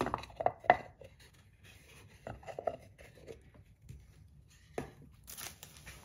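Handling of a round wooden box: several sharp wooden clicks and knocks as the lid comes off and things are set down, then near the end a short crinkling rustle of packaging.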